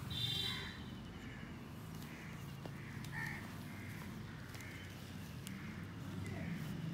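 Short animal calls repeating about once a second, with a brief higher pitched call near the start, over a steady low hum.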